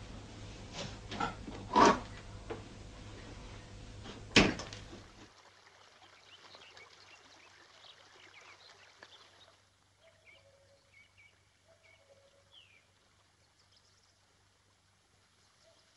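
Old film soundtrack: several sharp thumps over a steady low hum, the loudest about four seconds in. The hum then drops away to faint open-air quiet with scattered short bird chirps.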